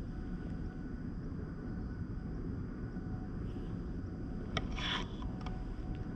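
Steady low wind rumble on the microphone, with a brief noisy scratch about four and a half seconds in.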